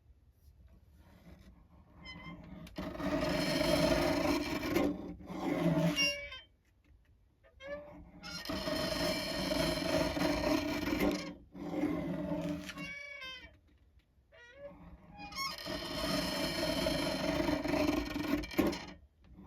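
Old wooden paper slicer squeaking as its cutting arm is worked through the paper, in three long squeaky strokes with short pauses between, the squeal sliding in pitch near the end of each stroke.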